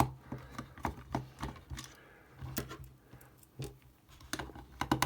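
Small screwdriver working the screws out of a Turtle Beach Ear Force Stealth 400 headset's plastic ear cup: a string of sharp, irregular clicks and taps of metal on screw heads and plastic.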